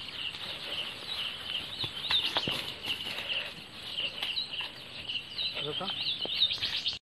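Small birds peeping and chirping, many short high calls overlapping without a break.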